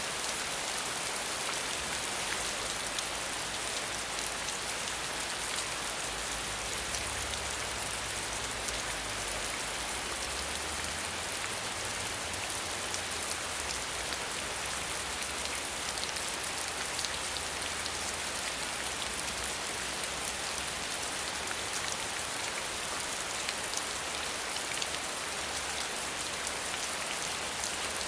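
Steady rain falling: a dense, even hiss of many small drops.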